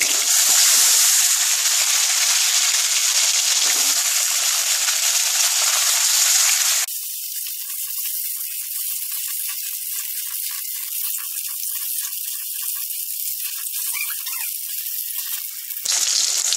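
Peeled potato pieces frying in hot mustard oil in a kadai, sizzling loudly. About seven seconds in, the sizzle drops suddenly to a quieter, steady frying hiss.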